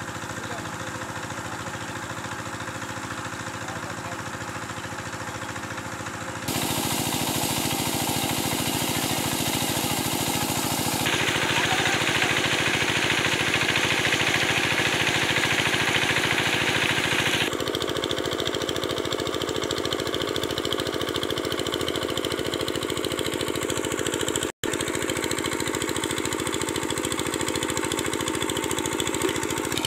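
Small engine of a water pump running steadily, its sound jumping in level and tone several times. A stronger hiss rides over it through the middle stretch.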